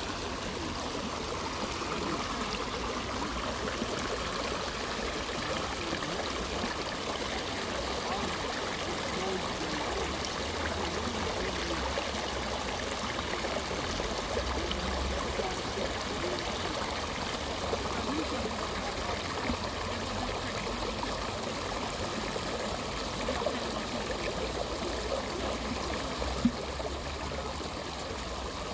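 Steady running, trickling water in a shallow pond, with a single sharp click near the end.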